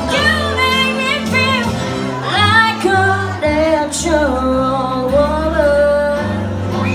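A young female singer singing a song into a handheld microphone, amplified through a PA, over instrumental accompaniment with steady low bass notes.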